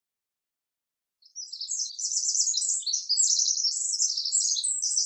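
Songbird twittering: a rapid, unbroken run of high chirps and trills that starts about a second in.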